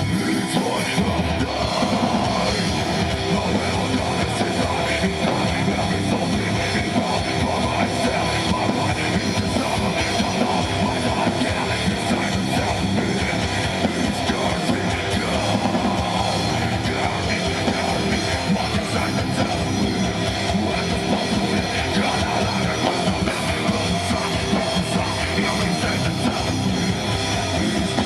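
Rock music: a band with electric guitars and drums playing an instrumental passage, with no singing.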